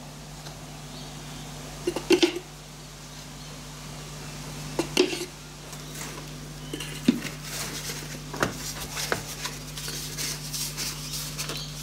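Scattered knocks and clinks of plastic containers and a scoop as powder coating powder is scooped into the plastic cup of an Eastwood powder coating gun and the cup is fitted to the gun. A steady low hum sits underneath.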